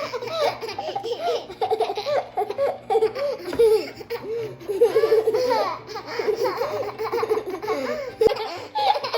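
A young child laughing hard, a long unbroken run of high-pitched giggles, with one sharp click near the end.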